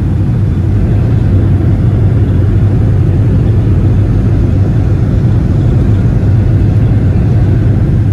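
Airliner cabin noise: the engines and rushing air make a loud, steady low rumble that does not change.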